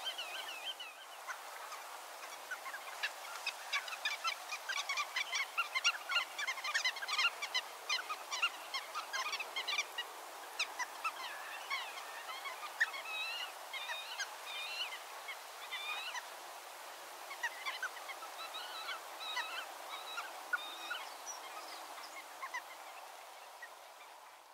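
Many wetland birds calling at once: a dense stream of short, overlapping calls, busiest in the first half and thinning toward the end, over a steady background hush.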